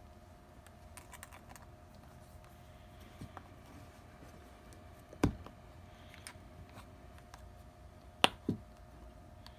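Sharp clicks and taps from small repair tools and phone parts being handled, over a faint steady hum. The loudest click comes about halfway through, and two more follow close together near the end.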